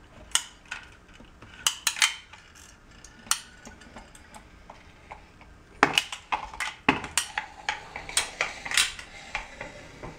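A manual caulking gun clicking and knocking in irregular clusters as it is squeezed and worked along the joint between glass tile and granite countertop.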